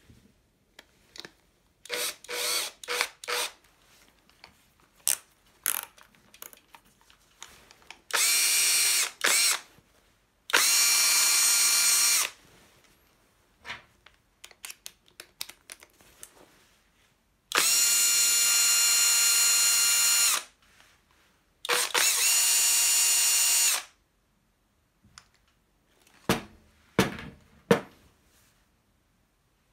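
Panasonic cordless drill driver's motor run in a few short trigger blips, then four separate runs of one to three seconds each at a steady high speed, each starting and stopping abruptly. Clicks and knocks of handling fall between the runs and near the end.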